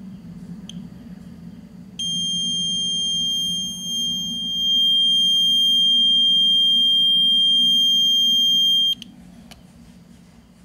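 Digital multimeter's continuity buzzer giving one steady high beep, starting about two seconds in and cutting off abruptly about seven seconds later, with the probes across the pins of a TV's vertical deflection IC and the meter reading 8 ohms. The beep signals a short: the IC's negative supply pin is shorted to its yoke output pin.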